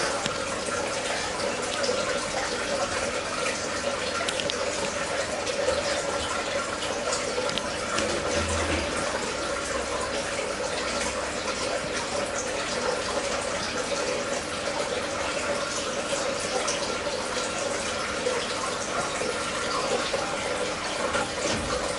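Steady trickle and splash of running water in an aquarium tank, unbroken throughout.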